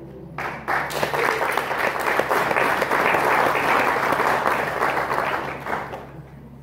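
A small congregation applauding: many hands clapping, starting about half a second in and fading out near the end.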